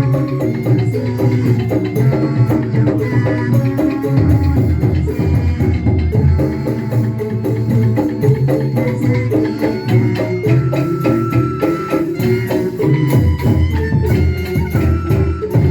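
Live band music, a busy instrumental passage of a folk-style song with drums and hand percussion over sustained melodic notes.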